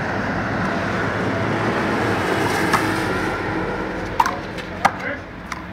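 A steady engine rumble, like a vehicle passing, swells and then fades out about three and a half seconds in. After it come a few sharp, separate slaps of a handball.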